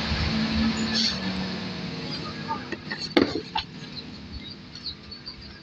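Background noise with a steady low hum that fades out over the first two seconds, then a few sharp knocks about three seconds in from the plastic crate of vegetable scraps being carried and handled.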